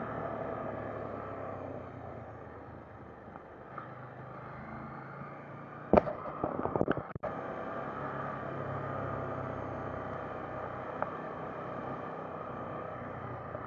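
KTM 890 Duke GP's parallel-twin engine running steadily while riding, mixed with wind noise on the bike-mounted camera. About six seconds in comes a short cluster of sharp knocks and clatter, as something brushes over the camera.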